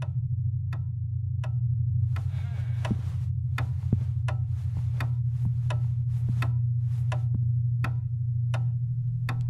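Horror film soundtrack: a low, pulsing drone under sharp clock-like ticks. The ticks are slow and sparse at first, then quicken to about three a second about two seconds in.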